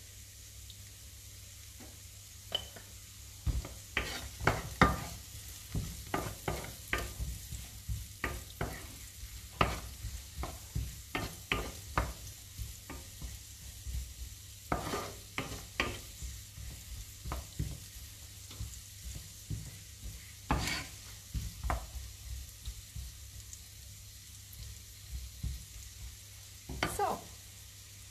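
Diced artichoke stems and leeks frying in a nonstick frying pan with a steady, quiet sizzle. A wooden spoon stirs them in irregular bouts, scraping and knocking against the pan.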